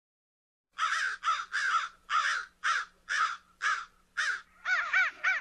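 Crows cawing: a run of harsh caws starting about a second in, coming faster and more evenly near the end.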